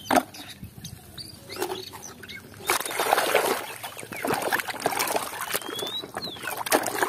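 A hand sloshing and squelching through thick muddy water in a basin, with irregular wet splashes and patter as it gropes for a mud-covered toy.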